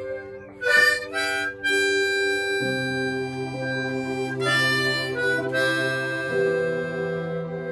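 Harmonica played: a slow tune of held notes over sustained chords, with a deeper note coming in about two and a half seconds in.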